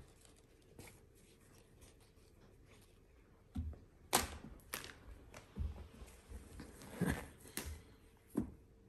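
Scattered light knocks, soft thumps and rustles of handling and play, roughly one every half second to second. The sharpest is a click about four seconds in.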